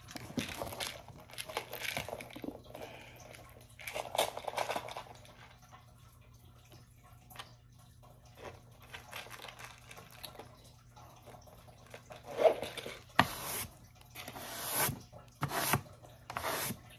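Rustling, crinkling and light knocks of small decor items being handled and set down, sparse in the middle and coming thicker and louder over the last few seconds, over a faint steady hum.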